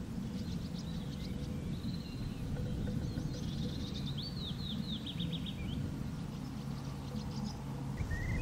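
Songbirds singing in woodland, a string of quick high trills and chirps over a steady low background rumble; near the end a different call of short repeated notes begins.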